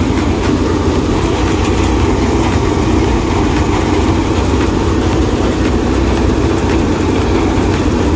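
Mahindra 475 DI tractor's four-cylinder diesel engine running steadily under load, driving a Mathaur Super Deluxe paddy thresher whose spinning drum and blower blend with it into one continuous loud drone.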